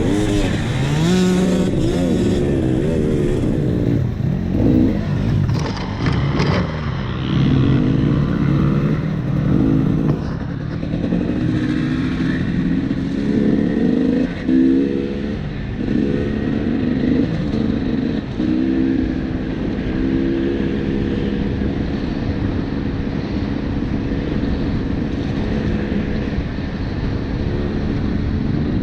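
KTM 300 two-stroke dirt bike engine running while riding off-road, the revs rising and falling in the first several seconds, then holding steadier. A few sharp knocks and clatter from the bike over rough ground.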